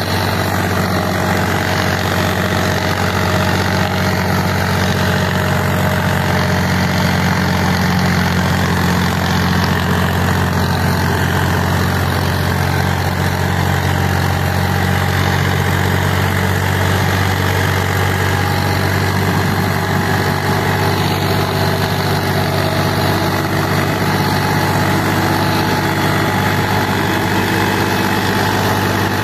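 Indo Farm tractor's diesel engine running steadily as it pulls a disc harrow through tilled soil, at an even note throughout.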